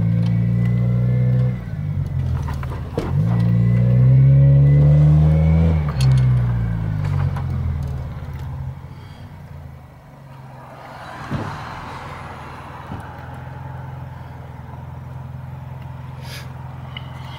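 1999 Toyota Corolla's 1.8-litre four-cylinder running through a bolt-on Trust muffler, heard from inside the cabin. Its exhaust note is loud at first, dips twice and climbs again, then eases off about six seconds in to a quieter steady drone, with a single knock about eleven seconds in.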